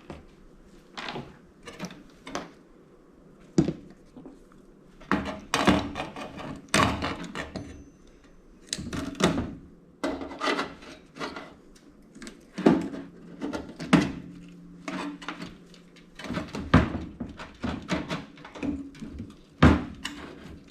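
Irregular clicks, clatters and knocks of tools and parts against the sheet-steel body of a toaster oven being dismantled. Some of the harder knocks leave the steel case ringing briefly.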